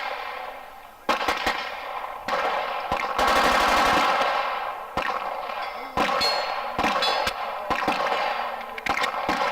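Gunfire on a busy shooting range: single shots at uneven intervals, with a short rapid burst of automatic fire about three seconds in. A steel target rings briefly about six seconds in.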